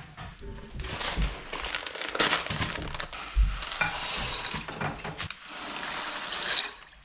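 Cooking sounds: a steady sizzling crackle, with several dull knocks of cookware and a few sharp clicks.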